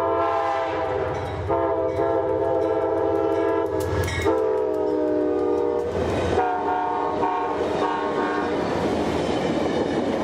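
Amtrak GE Genesis diesel locomotive's air horn sounding a chord in a string of blasts: three long ones, then three short ones. Under the horn and after it comes the rumble and clickety-clack of the passenger cars' wheels as the train passes close by.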